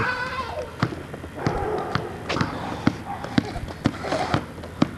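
A basketball bouncing on an asphalt driveway: a series of sharp, uneven thuds, with voices in between.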